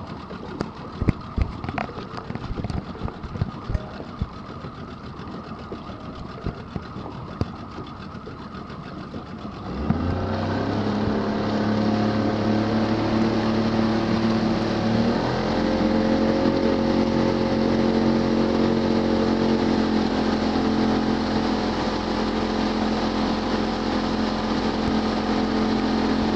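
Tow boat's engine idling, with scattered sharp knocks, then opening up abruptly about ten seconds in and stepping up in pitch a few seconds later. It then runs steadily under load, towing a kneeboard rider up out of the water.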